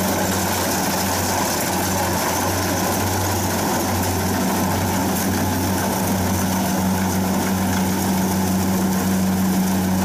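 Kubota DC60 rice combine harvester's diesel engine and machinery running steadily as it cuts and threshes standing rice: a steady, even drone.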